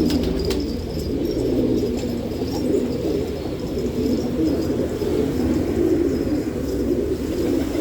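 Ahvazi domestic pigeons cooing steadily, many coos overlapping, with a few sharp clicks about half a second in.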